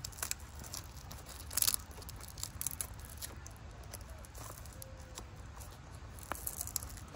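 Hands working the zipper of a hard-shell frame bag whose pull tab is broken off: scattered rustles and small clicks, with a short scratchy rasp about one and a half seconds in.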